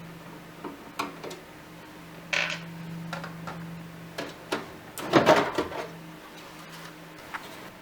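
Clicks, a short scrape and a brief clatter of a Lenovo H530s slim desktop PC's case cover being taken off and handled, the loudest clatter about five seconds in, over a faint steady low hum.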